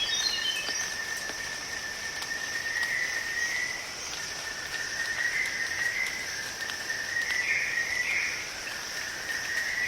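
Rainforest insect chorus: a steady high buzz of insects, and beneath it a continuous shrill trill that swells several times. A short run of descending notes fades out right at the start.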